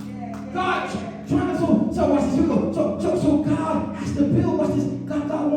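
Voices singing in church over sustained instrumental chords, the singing swelling louder about a second in.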